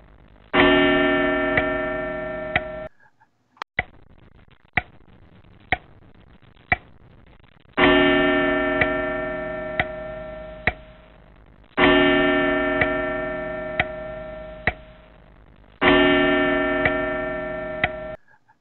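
A clock ticking about once a second, with a deep bell chime struck four times; each strike rings on and fades over a few seconds, and two of them cut off abruptly.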